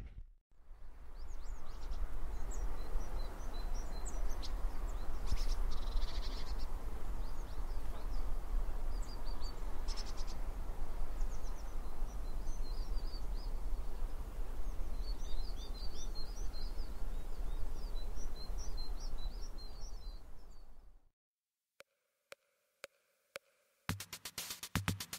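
Outdoor lakeside ambience: steady wind rushing over the microphone, with small birds chirping now and then, thickest around the middle. About 21 s in it cuts off, and near the end electronic music with a steady beat starts.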